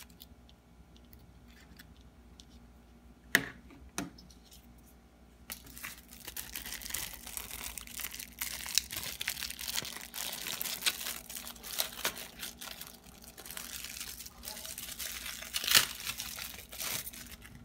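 Two sharp knocks, then a clear plastic sleeve holding a 5G SIM card crinkling and tearing as it is opened, for about ten seconds, loudest near the end.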